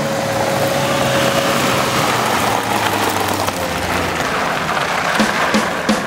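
A Suzuki Samurai and an Asia Rocsta off-road 4x4 drive past on a loose gravel track, their engines running and their tyres crunching over the stones. The sound grows louder over the first second or so as they come close.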